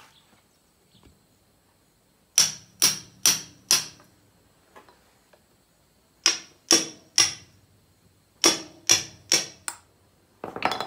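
Hammer blows on metal under the Cockshutt 40's engine, driving a piston up out of its cylinder. The sharp, ringing knocks come in groups of three or four, about two a second, with short pauses between the groups and a louder flurry near the end.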